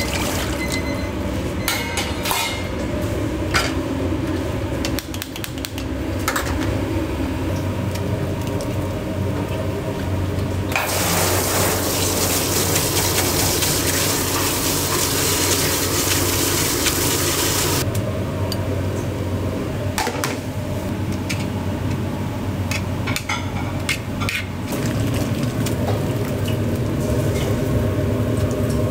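Restaurant kitchen work: dishes and utensils clinking and knocking over a steady low hum of kitchen equipment. About eleven seconds in, a loud steady rushing hiss starts and lasts about seven seconds.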